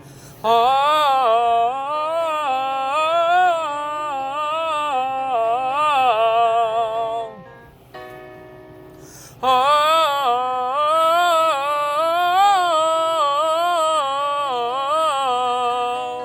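A singer practising a three-tone vocal exercise on an open 'ah' vowel, sung in two long phrases of stepping, rising and falling pitches. A keyboard sounds steady notes in the gap between the phrases, about halfway through.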